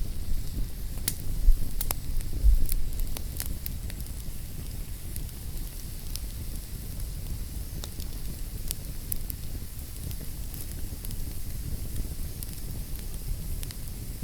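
Fireplace fire crackling: scattered sharp pops and snaps over a steady low rumble of flames, with the pops busiest in the first few seconds.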